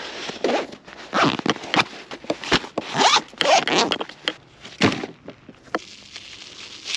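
A packed nylon bag being closed and strapped up: a series of quick zipper-like rasping pulls, the last about five seconds in.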